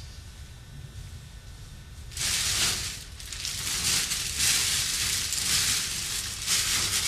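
Black plastic rubbish bag crinkling and rustling loudly as it is grabbed and handled, starting suddenly about two seconds in.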